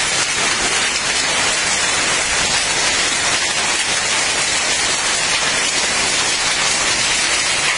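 Heavy storm rain pouring down steadily in a hailstorm, a dense, even hiss of water falling on the ground and surfaces.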